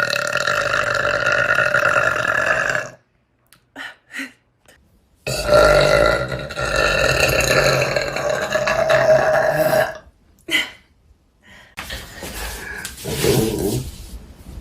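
A woman burping: a long, drawn-out burp of about three seconds, two short ones, then another held for about four and a half seconds. A short burp follows, and rougher, quieter burps come near the end.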